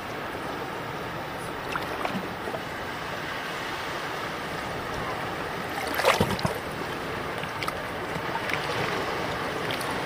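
Small sea wavelets lapping over sand and rocks at the waterline: a steady wash with a few light splashes, the loudest cluster about six seconds in.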